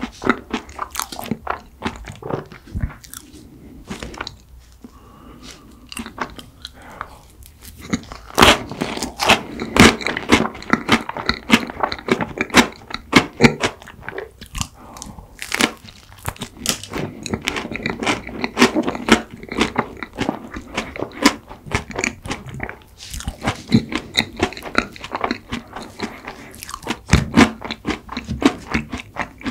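Close-miked eating sounds: crisp crunching bites and chewing of a cookie-topped waffle snack, with mouthfuls of ice cream cake in between. The crunches are many and sharp, and most frequent from about eight seconds in.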